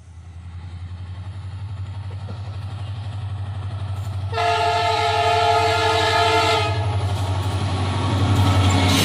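WDP4 diesel locomotive approaching and passing, its EMD 16-cylinder two-stroke engine throbbing steadily and growing louder. About four seconds in it sounds one long horn blast of a couple of seconds, and wheel and rail noise builds near the end as it draws level.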